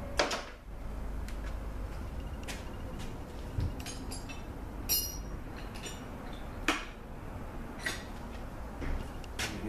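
Scattered metal clinks and knocks of hand tools and transmission parts being handled and set down on a workbench, one about five seconds in ringing briefly. A low steady hum runs underneath.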